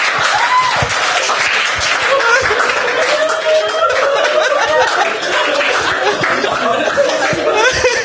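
Audience laughing at a punchline, many voices at once, with scattered clapping.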